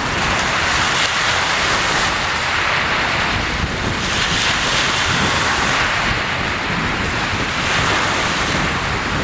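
Sea waves breaking and washing on the shore in a steady surf that swells and eases every few seconds, with wind rumbling on the microphone.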